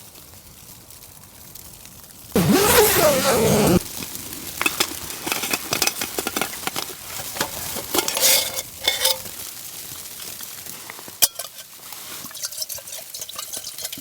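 Camp gear being handled: a loud rustle lasting about a second, then light clicks, clinks and rustling, with one sharp click near the end.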